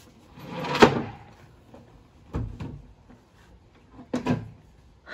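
Wooden cabinet being slid off a pickup truck's bed and set down: a rising scrape that ends in a bang about a second in, then a few hard wooden knocks about two and a half and four seconds in.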